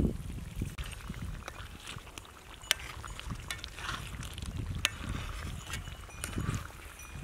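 A spoon scraping and tapping in an iron kadai as thick masala gravy is ladled over a whole chicken cooking on a wood fire, with a few sharp clicks. A low thump at the very start.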